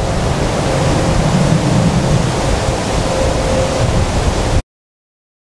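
Loud, steady rushing noise with a deep rumble underneath and a faint steady hum. It cuts off suddenly near the end.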